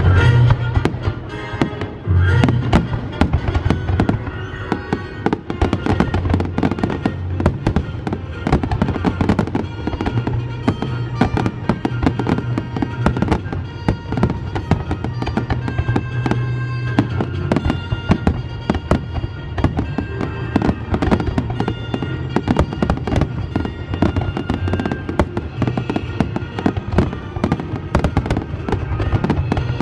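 Fireworks show: a dense, continuous barrage of bangs and crackles, several a second, over music with held notes.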